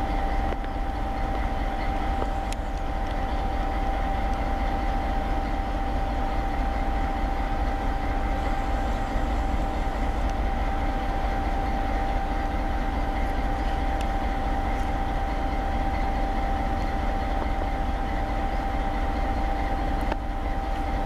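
Czech class 754 'Nurka' diesel locomotive idling at a standstill, with a steady low engine rumble and a steady high-pitched whine held over it.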